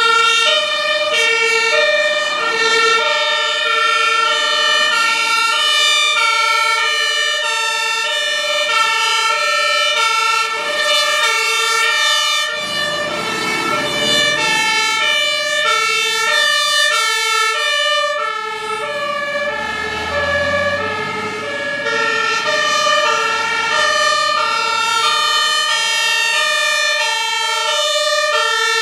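Several German two-tone emergency sirens (Martinshorn) sounding at once, each stepping between its high and low note, out of step with one another. About halfway through, the deeper rumble of a passing vehicle rises under the sirens.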